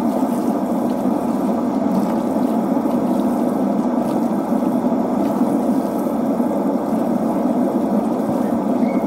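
Tap water running steadily from a kitchen faucet and splashing over hair being rinsed into a stainless steel sink.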